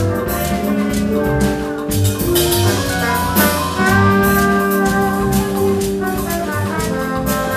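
Afro-Latin instrumental band playing: drum kit and percussion keep a steady groove under sustained melodic lines, with a bright cymbal swell about two and a half seconds in.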